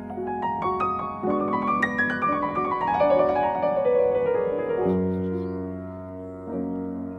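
Background piano music: a run of notes stepping down in pitch, then lower notes held in the later seconds.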